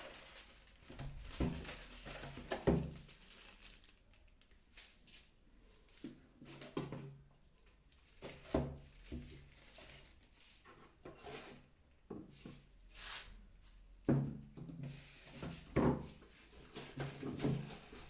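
Cardboard box and plastic packaging of a food chopper being handled and opened: irregular rustles, crinkles and light knocks, with quieter stretches in between.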